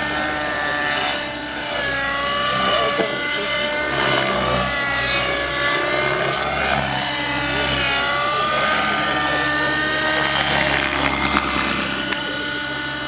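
Outrage Velocity 50 N2 radio-controlled helicopter's nitro engine and rotor whining in flight, the pitch sliding up and down as it throws aerobatic manoeuvres.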